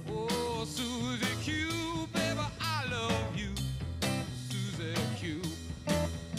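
Rock song playing: a lead vocal line over guitar, bass and a steady drum beat.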